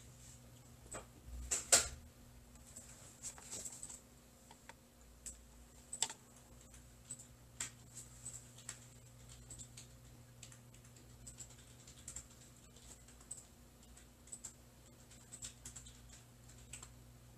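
Irregular clicking of someone typing on a computer keyboard, one louder clack about two seconds in, over a faint steady hum.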